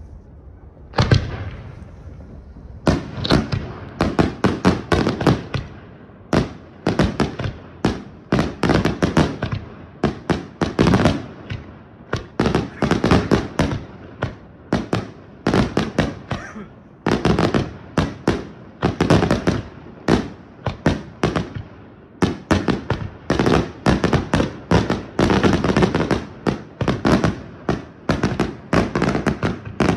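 Aerial fireworks display: one heavy boom about a second in, then from about three seconds on a dense, near-continuous barrage of sharp bangs and crackles in rapid volleys with brief gaps between them.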